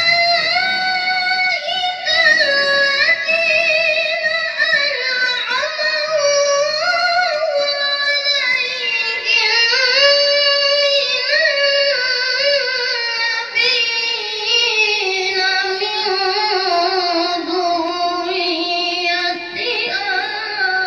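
A young boy's high voice reciting the Quran in melodic tilawah style, amplified through a stage sound system. He holds long ornamented phrases with vibrato, and the melody sinks lower in pitch over the second half.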